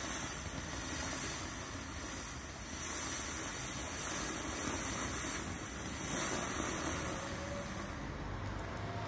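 Ground firework fountain gushing a steady rushing hiss as it sprays sparks and small star bursts, pulsing slightly about once a second.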